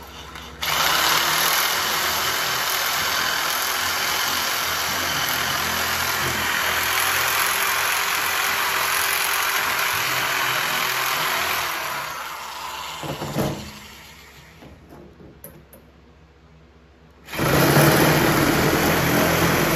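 Handheld electric sheet-metal shear running and cutting through thin steel sheet, a steady motor-and-cutting noise. It runs for about eleven seconds, winds down with a knock, stops for a few seconds, then starts cutting again near the end.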